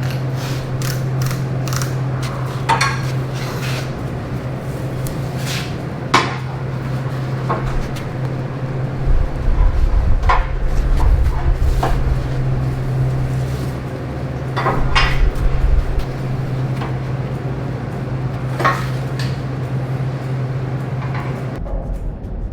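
Welding on stainless steel bar to join two cut pieces: a steady buzzing hum with scattered metallic clinks and knocks, the hum stopping near the end.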